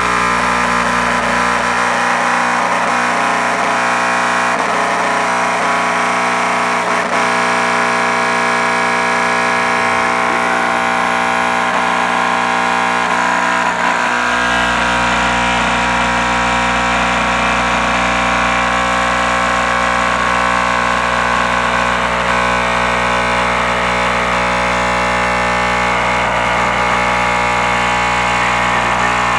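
Overdriven car-audio subwoofer, a cheap Rockville sub, playing a steady bass tone as a loud, distorted drone made of many held tones. The deepest bass drops out about two seconds in and comes back about halfway through.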